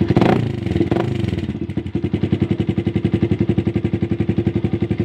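Motorcycle engine exhausting through a newly installed SC Project aftermarket silencer. Just after starting it briefly revs and drops back, then settles into a steady idle with a quick, even exhaust pulse.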